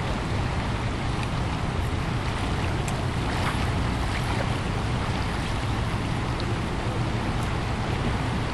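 River current rushing steadily over shallow riffles, with wind rumbling on the microphone.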